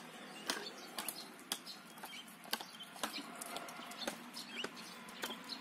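Chickens clucking, with small birds chirping. Short sharp clicks come at irregular spacing, roughly every half second.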